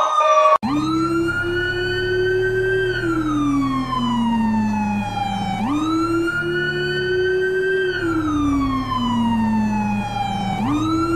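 Police siren wailing: each cycle rises quickly in pitch, holds, then slowly falls over about five seconds, starting about half a second in and rising again twice. A steady low hum runs underneath.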